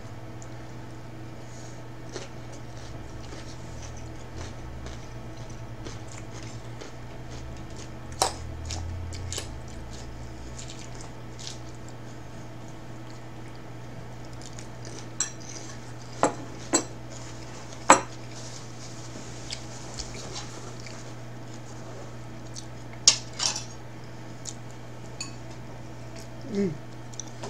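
Metal fork clinking and scraping against a ceramic salad bowl and plate while eating, with scattered sharp clinks, the loudest about two-thirds of the way through. A steady low hum runs underneath.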